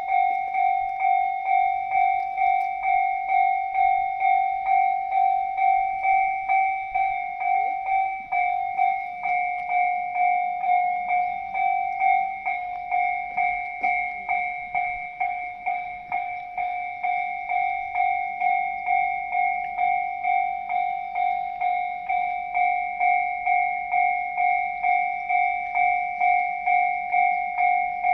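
Japanese railway level-crossing warning bell ringing: a rapid, evenly repeated electronic ding on two fixed pitches, signalling that a train is approaching and the barriers are down.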